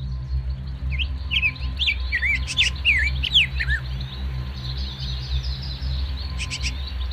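Small songbird chirping: a quick run of short, sliding whistled notes over the first few seconds, then a few more brief chirps near the end. A steady low drone runs underneath.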